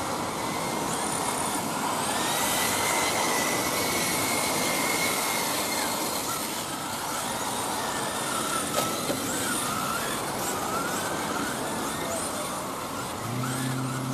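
1/10-scale Kyosho Mk2 Fazer electric RC touring cars racing on asphalt: the motors' high whines rise and fall as the cars speed up and slow down over a steady noisy hiss. Two sharp clicks about nine seconds in, and a low steady hum starts near the end.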